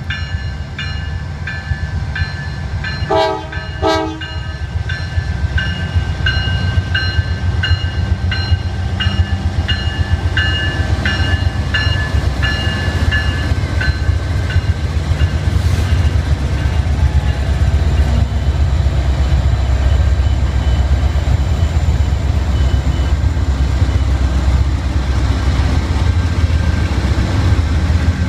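Norfolk Southern diesel-electric locomotives passing close by with a steady heavy engine rumble. The locomotive horn gives two short blasts about three seconds in, while the bell rings steadily and stops about halfway through.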